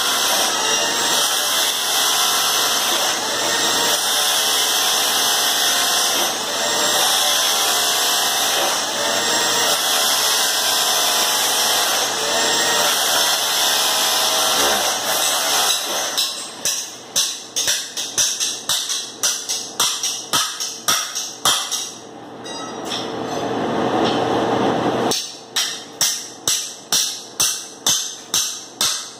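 Music for roughly the first half, then a hammer striking the glued-down wood floor in rapid, steady blows, about three a second, breaking off for a few seconds before the blows resume.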